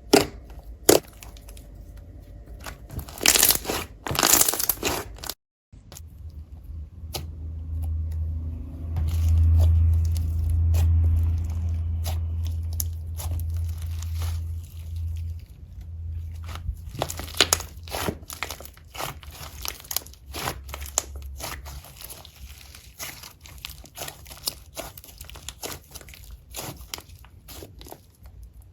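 Slime being squeezed and pulled apart by hand: crunching, crackling and sticky popping clicks, loudest about three to five seconds in. A low rumble runs underneath through the middle part.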